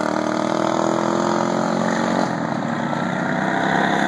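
Racing lawn mower engines running hard, their pitch slowly rising, then shifting about halfway through.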